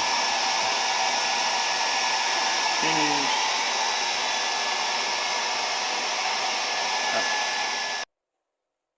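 Hair dryer blowing steadily on a mild setting with a thin whistle, drying a freshly bathed puppy's coat. It cuts off suddenly about eight seconds in.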